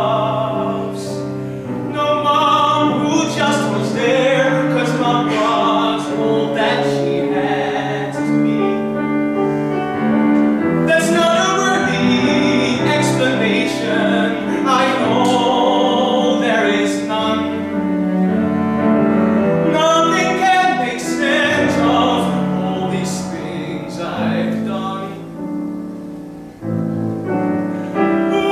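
A solo singer performing a musical-theatre song with vibrato, accompanied by cello and piano.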